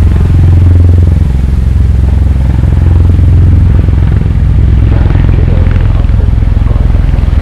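Aircraft engine, a loud, steady low drone with a fast pulsing beat.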